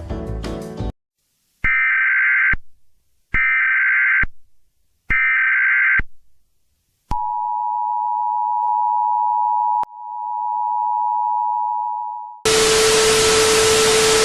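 Emergency Alert System test audio: three evenly spaced, one-second bursts of the buzzy digital header data, then the two-note attention tone held for about five seconds, dipping and swelling again about halfway. Near the end it gives way to a loud burst of static with a steady lower tone running through it. Music cuts off about a second in.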